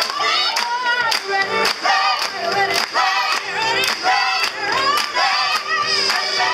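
A woman's lead voice through a microphone with a choir singing behind her, over steady rhythmic handclapping about two or three claps a second.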